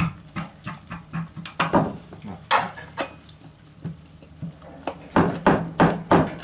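A kitchen knife splitting a small oak chip lengthwise on a wooden board: a run of irregular sharp taps and knocks as the blade is driven down through the wood, coming faster and louder near the end.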